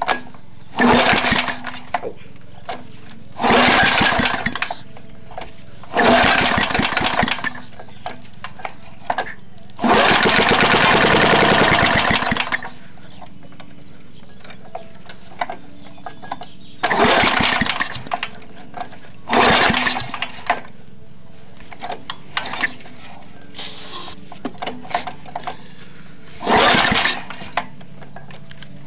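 Tecumseh lawn mower engine being started after sitting for years: about seven times it bursts into a loud, rough run for a second or two, the longest about two seconds, then dies again. The engine is worn out, with a bad head gasket, carburettor and piston.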